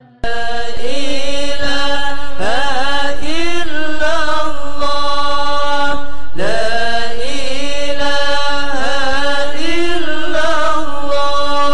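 Congregation singing a melodic Islamic sholawat chant in unison, in long held phrases. It starts suddenly just after the beginning, and a new phrase begins about six seconds in.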